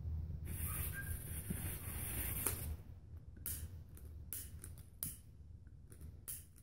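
Long-nosed butane lighter hissing at a line of chlorate-and-sulfur powder that does not catch: a steady hiss for about two seconds, then several short hissing spurts, over a low background hum.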